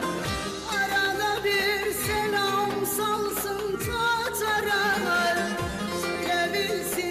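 Turkish folk song: an ornamented, wavering melody over a low drum hit about every two seconds.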